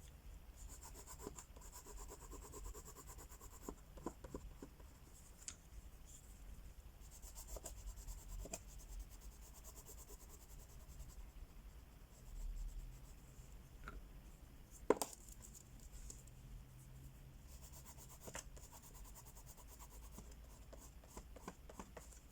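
Crayola wax crayons scratching back and forth across a coloring book page in several stretches of quick shading strokes, with a single sharp click about two-thirds of the way through.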